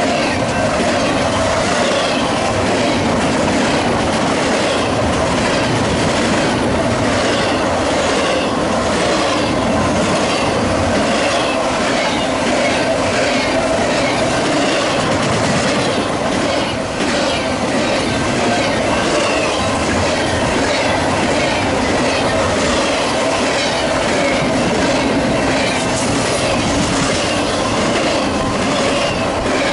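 Double-stack container well cars of a freight train rolling past close by: a steady, loud rumble of steel wheels on rail with a regular clickety-clack as the wheels cross rail joints.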